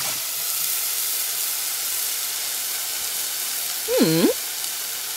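Potato sticks frying in hot oil in a small non-stick pan, with a steady sizzle. About four seconds in, a short pitched sound dips and rises again over the sizzle.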